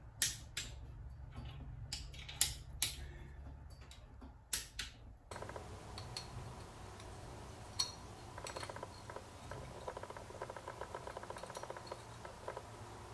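Torque wrench making sharp metallic clicks, a few at a time, as the case bolts of a Subaru STI engine block are tightened. About five seconds in, the background changes and the sound turns to faint clinks and a quick light rattling of metal as a piston is handled.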